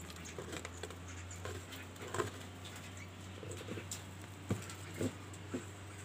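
Scattered light clicks and taps over a steady low hum, with a few sharper knocks about two seconds in and again near four and a half, five and five and a half seconds.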